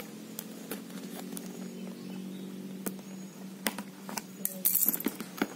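Cardboard phone box being slit open at its seal sticker: small scattered clicks and scratches of the tool against the box edge, with a short, harsh scraping rasp about five seconds in.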